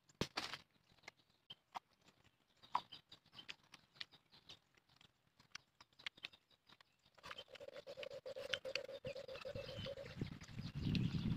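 Close-up eating sounds: scattered small sharp clicks and smacks of chewing and lips. A faint steady hum comes in a little past the middle.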